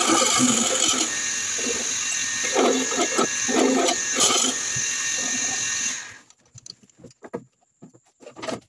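Lathe running while a hand-held scraping tool cuts a spinning wooden handle blank, with bursts of heavier scraping in the middle. About six seconds in the lathe is switched off and the noise stops abruptly, leaving a few light knocks as the piece is handled.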